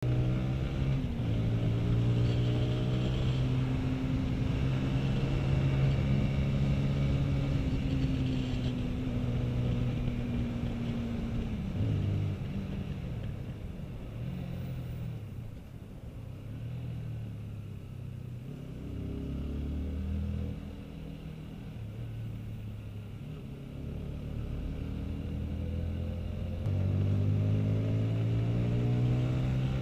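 Honda CBR sport motorcycle's engine heard from the rider's seat while riding, held at steady revs for about the first twelve seconds, then easing off with the revs dropping. The revs then rise and fall repeatedly at lower speed before the engine pulls harder and louder again near the end.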